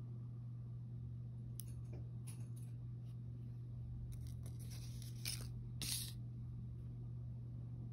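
Cardboard product tag being handled and turned over on a wooden table: a few short papery rustles, then a denser run of rustles and scrapes, loudest around five to six seconds in. A steady low hum runs underneath.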